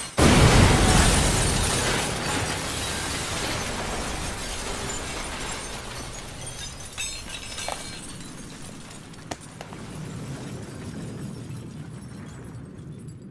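A heavy chandelier crashing to the floor: a loud impact and shatter at the start, then a long fading clatter of falling debris with a few sharp ticks of pieces landing.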